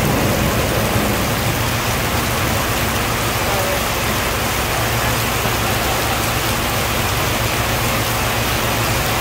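Heavy rain pouring steadily, with the low, steady drone of the parked tanker truck's diesel engine running underneath.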